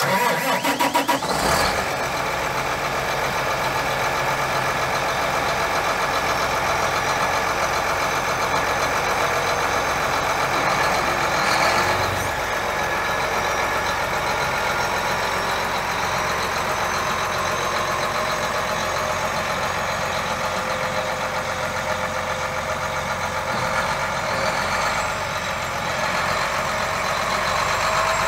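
John Deere 8235R tractor's six-cylinder diesel engine running steadily, with a steady whine over the engine note.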